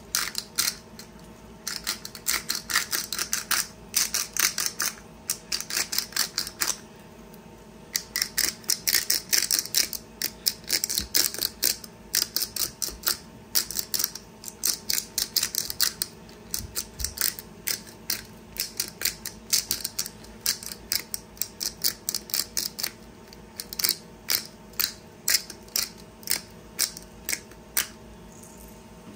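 Hand pepper mill grinding black pepper: quick runs of sharp ratcheting clicks with short pauses between spells of twisting.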